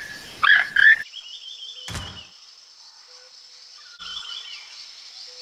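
Toucan calling in a run of frog-like croaks, the last two about half a second in. After that comes jungle ambience: a steady high insect buzz with chirping bird trills, and a single thump about two seconds in.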